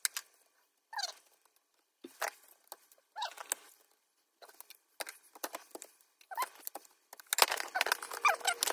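Laptop motherboard and plastic case creaking and squeaking in short bursts, with small clicks, as the board is pried up with a screwdriver against screws still left in. The busiest, loudest stretch of squeaks comes near the end.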